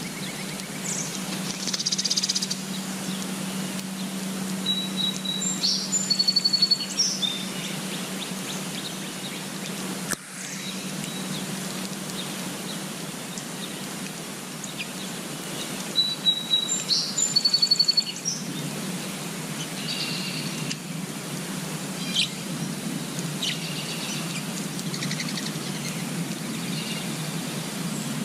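Songbirds singing and chirping over a steady background hiss and low hum. A high song phrase, a held note followed by fast trills, comes twice, about five seconds in and again some ten seconds later, with scattered short chirps in between.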